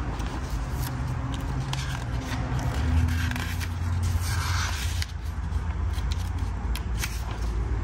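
Pages of a paper manual being turned and handled, rustling with short crinkles and a longer swish about four seconds in, over a steady low hum.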